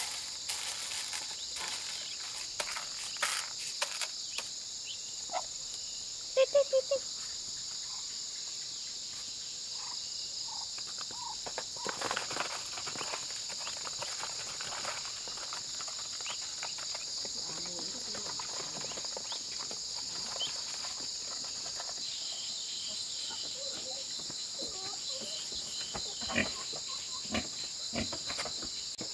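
Steady high-pitched insect chorus, with Muscovy ducks calling now and then over it: a quick burst of four short, loud calls about six seconds in, and fainter scattered calls later.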